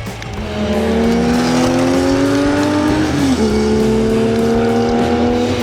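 Car engine sound effect accelerating: a pitched engine note climbs steadily, drops about three seconds in as if shifting gear, then climbs again, over background music.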